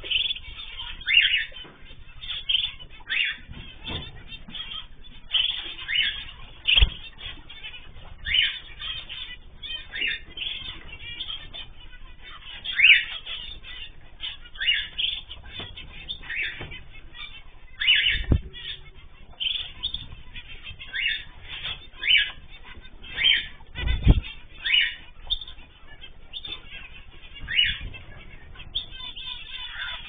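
A flock of small aviary finches, zebra finches and canaries, calling with short, repeated chirps, with a few low thumps of wings and landings.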